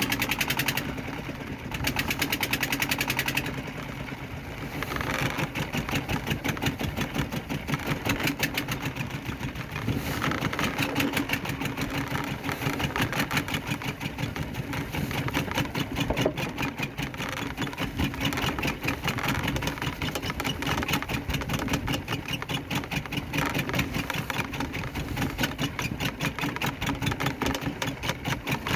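Small fishing boat's engine running steadily with a fast, even chugging.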